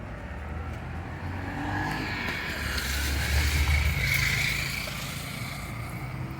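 A heavy vehicle passes close by: its low engine rumble and hiss swell through the middle and fade near the end.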